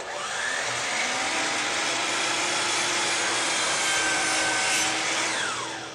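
DEWALT miter saw running and its blade cutting through a length of wooden base molding at a 45-degree miter. The sound starts suddenly and holds steady, then near the end falls in pitch as the blade spins down.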